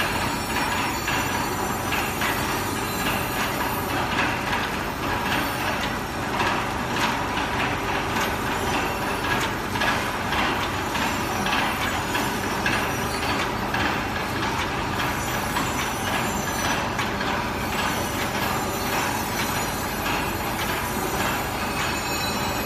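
Horizontal pillow-type flow-wrap packing machine running steadily, its conveyor and sealing mechanism making a rapid, continuous clatter as it wraps sponges in film.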